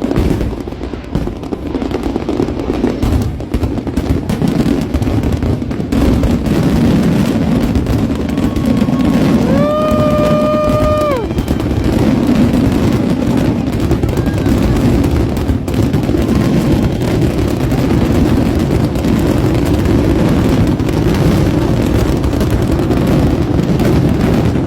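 Fireworks show barrage: a dense, rapid run of firework bursts and crackles, going on without a break. About ten seconds in, a single high tone rises and then holds for about two seconds.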